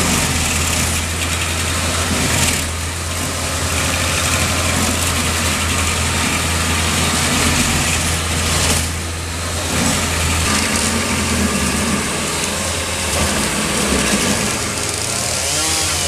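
Stump grinder running steadily, its engine a constant low drone under a broad noise of the cutting wheel grinding into an oak stump, which eases off briefly twice.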